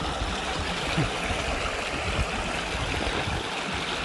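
Running stream: a steady rush of flowing water, with a soft low thud about a second in.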